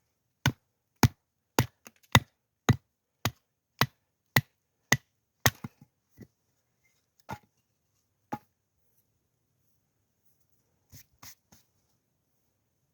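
Chopping: a run of ten sharp, even strokes at about two a second, then three slower, spaced strokes and a few faint taps near the end.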